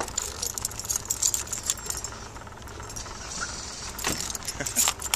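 Bicycle being ridden, with a rapid metallic jingling rattle and clicking over a steady low rumble. A few sharper knocks come near the end, as the bike and its loose camera mount jolt over the road.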